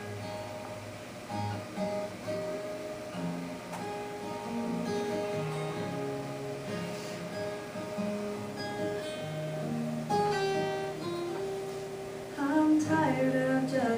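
Acoustic guitar playing the introduction of a gospel song, plucked and strummed with held chords. Near the end a singing voice comes in.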